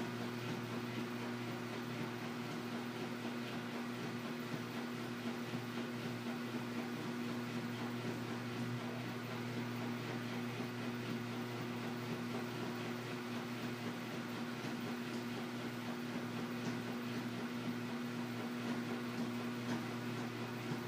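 Washing machine running steadily through its cycle: a constant motor hum with a low tone and its overtones, over an even whirring noise.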